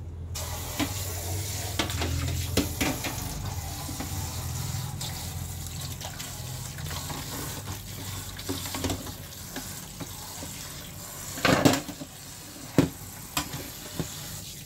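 Tap water running into a stainless steel sink while leafy greens are rinsed by hand, the stream starting suddenly just after the start. Scattered knocks and clatters from handling in the sink, the loudest a few sharp ones about two-thirds of the way through.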